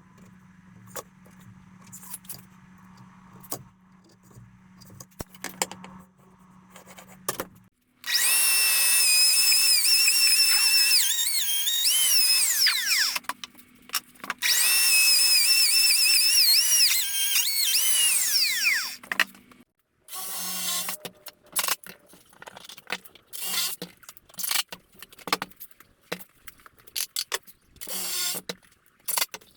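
An electric power tool's motor runs twice, about five seconds each, its whine dipping as it bites into the wood and winding down when it is switched off; before and after, scattered knocks and clatter of wood pieces being handled.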